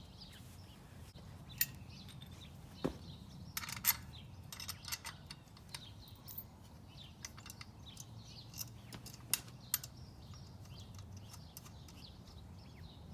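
Scattered light clicks and knocks of a 66cc bicycle engine kit being handled and set into place on a bike frame, irregular taps with a cluster about four seconds in and more toward the end.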